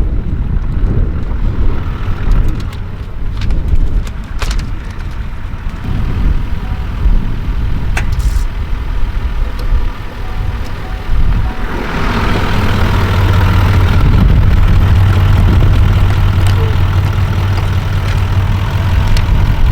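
Wind buffeting the microphone with a few clicks and knocks, then, about twelve seconds in, a vehicle engine running at a steady idle.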